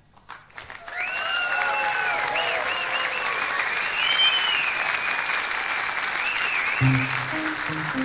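Concert audience applauding and cheering, with several people whistling over the clapping. A few guitar notes come in near the end.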